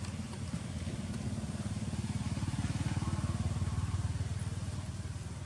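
A motor vehicle engine passing: a low, quickly pulsing engine hum that grows louder toward the middle and then fades.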